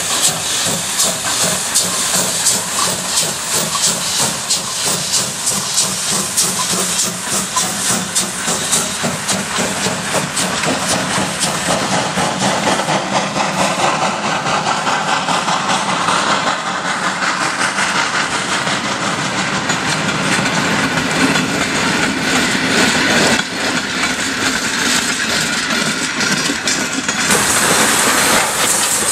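Ty2 class 2-10-0 steam locomotive passing under steam with rapid exhaust beats, followed by its passenger coaches rolling by with wheel and rail noise. Near the end, a steady loud hiss of steam from the locomotive standing.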